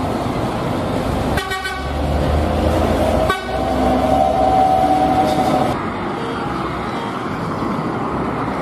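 Buses driving past with engine and road noise. In the middle, a bus horn sounds a steady blast of several notes at once for about two seconds.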